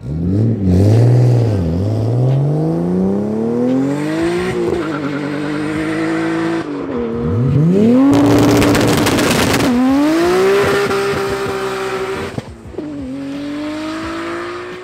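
Turbocharged sports cars accelerating hard on a drag strip, the engine note climbing and then dropping at each upshift. About seven seconds in, an R34 Nissan Skyline GT-R with its twin-turbo RB26DETT straight-six launches from low revs and pulls up through the gears, with a harsh crackle for a second or two just after the launch.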